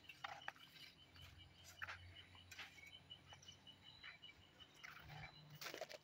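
Near silence: faint outdoor ambience with a small high chirp repeating evenly, about four times a second, and a few soft clicks.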